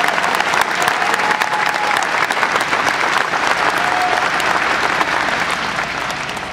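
Audience applauding, dense steady clapping that starts to die away near the end.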